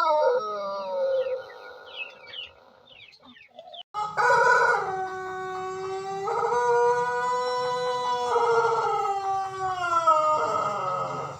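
Pelung rooster crowing: the end of one crow sliding down in pitch, then, after a break, a long drawn-out crow of about seven seconds, held on several steady notes and falling away at the end.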